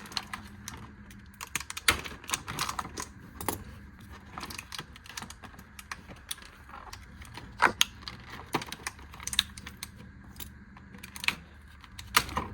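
Irregular sharp clicks and crackles of a screwdriver set's plastic packaging being handled and pried open, with a few louder snaps.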